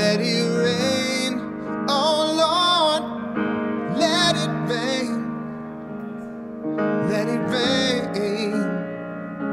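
A man singing a soul ballad over piano chords: four sung phrases with vibrato and vocal runs, separated by short breaks.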